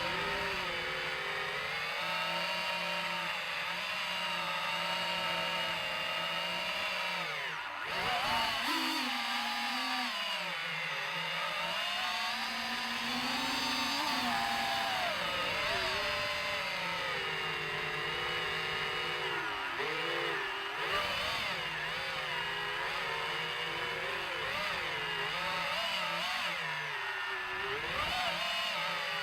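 DJI FPV drone's motors and propellers whining, the pitch rising and falling with the throttle as it is flown in acro mode, with sharp swoops about a quarter of the way in and near the end.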